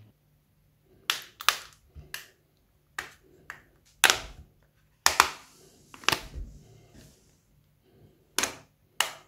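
Plastic back cover of a Tecno Camon 12 phone being pried off by hand, its clips popping loose in a string of sharp, irregular clicks.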